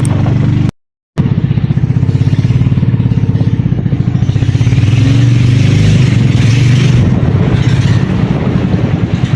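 Small engine running steadily at a constant speed with a rapid, even pulse. It cuts out briefly about a second in, then resumes.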